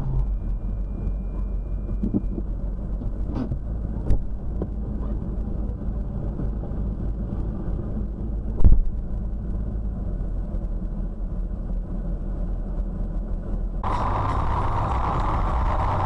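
Steady low rumble of a car's engine and cabin heard through a dashcam, with three short sharp knocks, the loudest about nine seconds in. About fourteen seconds in it switches abruptly to a louder, brighter hiss.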